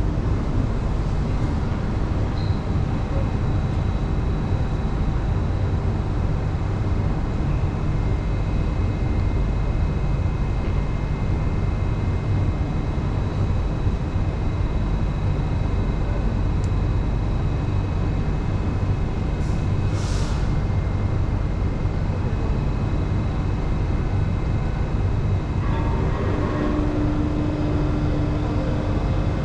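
Steady low hum and rumble of a Singapore MRT Circle Line train standing at a station platform, heard from inside the carriage with its doors open. A brief hiss comes about two-thirds of the way through.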